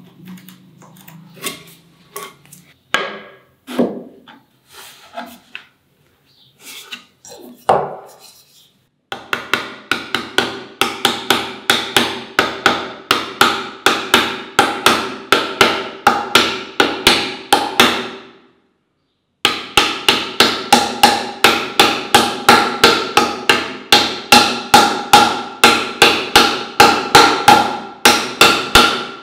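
A soft-faced mallet with a brass body and white plastic face tapping a wooden dovetail joint home in quick light blows, about three a second, each with a short ringing note. The taps break off briefly about two-thirds of the way through, then carry on. For the first nine seconds there are only scattered light clicks and scrapes from a chisel paring the dovetail.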